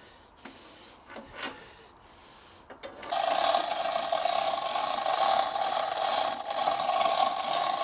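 A few light knocks, then about three seconds in a loud, steady mechanical rasping with a constant hum starts up and keeps going.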